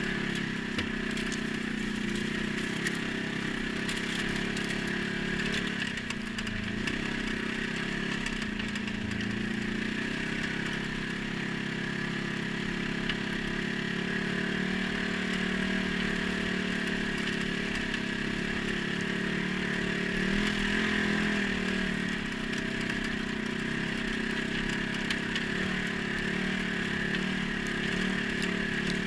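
ATV engine running steadily under way, its pitch shifting slightly about six seconds in and again about twenty seconds in.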